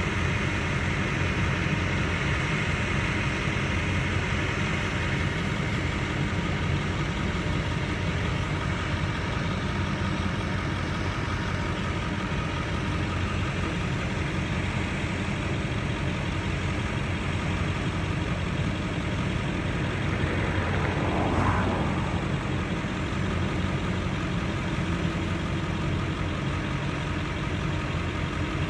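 Heavy farm machinery engine running steadily during a corn silage harvest. About three-quarters of the way in, a brief whine rises and falls in pitch.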